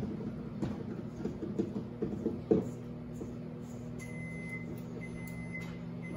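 Light irregular clicks and taps of a small metal cup against a stainless steel mixing bowl while dough is being made, over a steady low mechanical hum from a kitchen appliance. The sharpest tap comes about midway.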